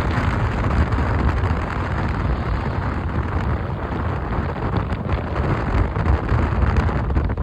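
Wind buffeting the microphone: a steady, rough rumble with hiss above it.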